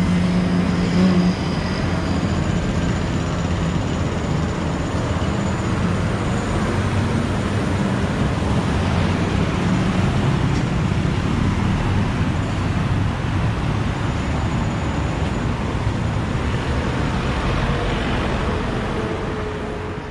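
Street traffic: a steady, loud roar of motor vehicles, with a low engine hum standing out in the first second or so. The sound fades out near the end.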